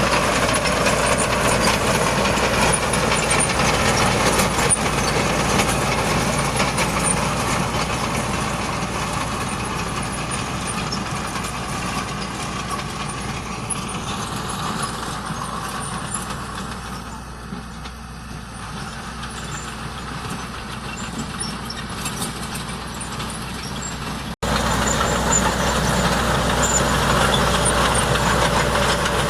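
Heavy diesel engine of construction machinery running steadily, growing fainter toward the middle, then loud again after an abrupt cut near the end.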